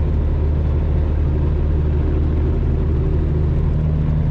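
The 2005 Chevy Cobalt SS's supercharged 2.0-litre four-cylinder engine running at a steady cruise, heard from inside the car as a steady low drone with road noise.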